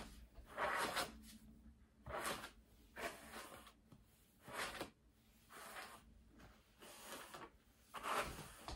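A hairbrush drawn down through a long synthetic wig, a faint swish on each stroke, about one stroke a second.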